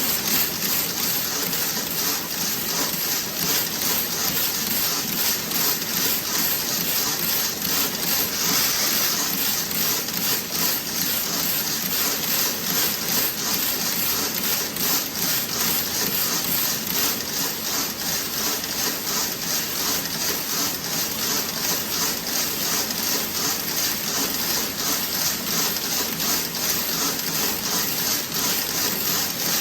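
Toe-sock knitting machine running: a steady, rapid, even mechanical clatter with a strong high hiss.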